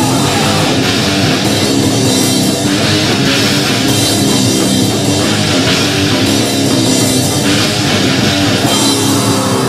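Loud heavy rock from a band's home-recorded demo: drum kit and electric guitars playing on steadily, with no singing.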